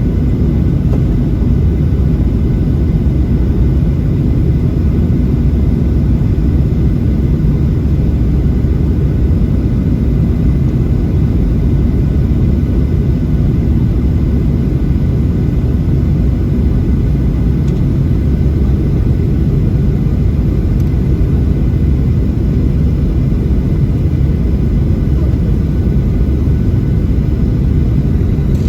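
Steady cabin noise inside a Boeing 737-700 airliner: a low rumble of its CFM56 jet engines and airflow, with faint steady whining tones above.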